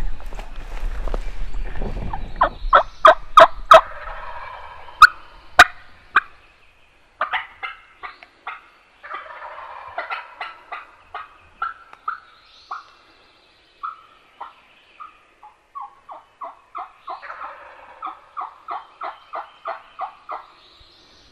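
Brush rustling and footsteps fade out over the first two seconds. Then wild turkeys call again and again: runs of short, evenly spaced yelps and hazy gobbles, some runs stepping down in pitch.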